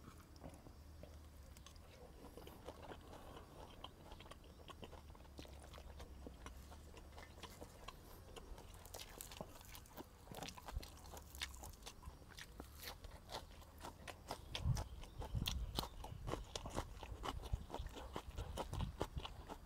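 Close-up chewing and crunching of leaf-wrapped food and fresh vegetables, with small clicks and rustles of leaves being handled. Quiet at first, becoming louder and more frequent from about halfway in.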